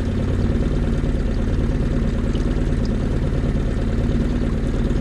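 Small outboard motor pushing a fishing boat at slow trolling speed, running steadily at an even pitch.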